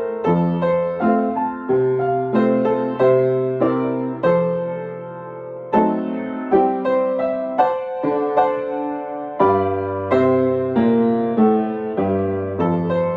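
Piano being sight-read at a moderate, even pace: chords over low bass notes, each struck and left to fade.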